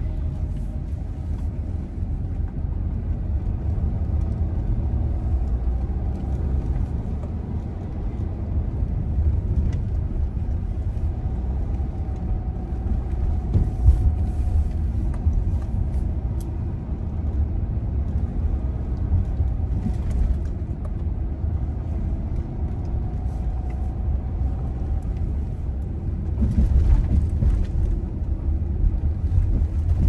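A car driving along a road: a steady low rumble of engine and tyre noise, a little louder near the end.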